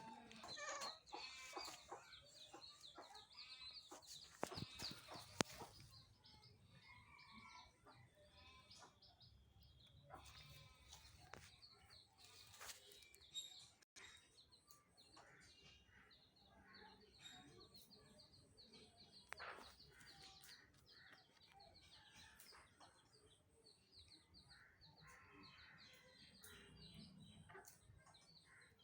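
Faint bird calls: many short repeated chirps and some lower calls over quiet background noise, with a few sharp clicks.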